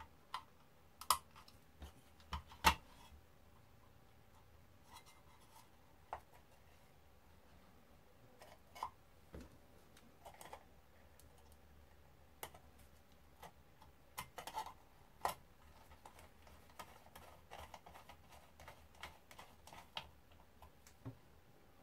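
Scattered light clicks, taps and scrapes from handling a small ribbed aluminium charge-controller case and driving its small screws with a screwdriver, with two sharper knocks a few seconds in and a cluster of clicks about two thirds of the way through.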